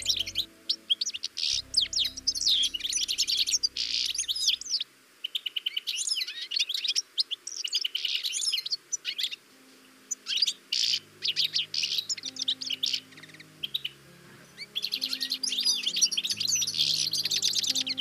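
European goldfinch singing: fast, liquid twittering phrases in bursts, sparser a little past the middle and dense again near the end, over soft background music with sustained low notes.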